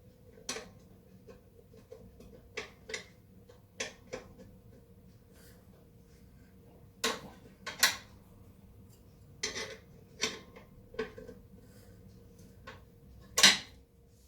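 Metal hand tools clinking and clanking against a brake drum assembly: a string of separate sharp metallic knocks at uneven intervals, with the loudest clank near the end.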